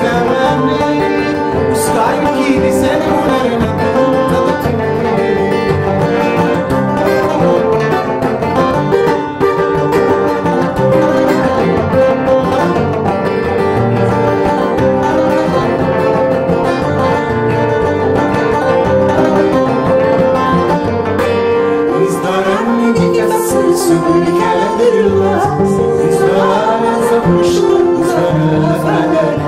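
An acoustic guitar and a banjo play a Berber (Amazigh) song live together in a continuous plucked and strummed groove, with male voices singing in the later part.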